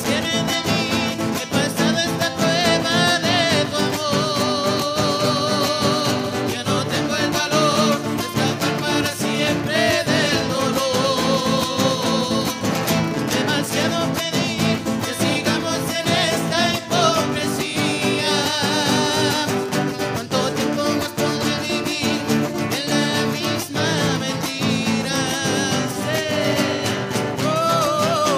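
A live Latin American folk band: several acoustic guitars strummed together and a metal güiro, with voices singing a melody with vibrato over them throughout.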